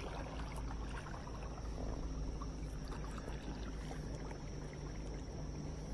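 Water trickling and splashing around a kayak hull as it is paddled, with scattered small drips and a steady low rumble underneath.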